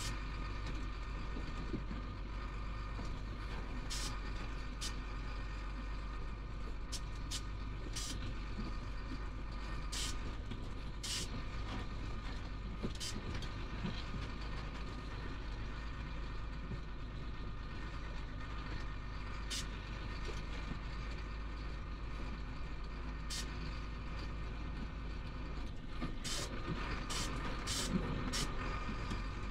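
Chenglong heavy truck's diesel engine running steadily, heard from inside the cab as a constant low drone. Scattered sharp clicks and knocks from the cab as the truck crosses a rutted dirt track, more of them near the end.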